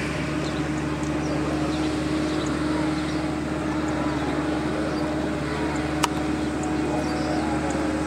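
Steady low mechanical hum with a held tone, faint high chirps scattered over it, and a single sharp click about six seconds in.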